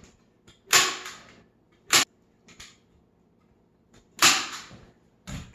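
Staple gun fastening carpet onto wood: three loud, sharp shots, about a second and two seconds apart, with two fainter clicks between them.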